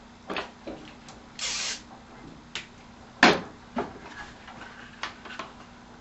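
Scotch tape and a long flexible strip being handled at a workbench: scattered clicks and knocks, a short rasp about a second and a half in, and a sharp knock, the loudest sound, a little past three seconds. A faint steady hum sits underneath.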